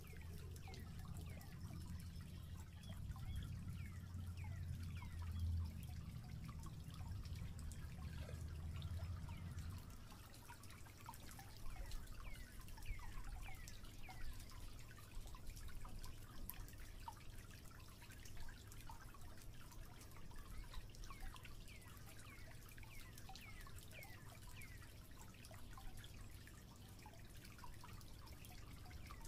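A shallow stream trickling and dripping over rocks, a steady babble of many small quick splashes. A low rumble sits under it for the first ten seconds or so.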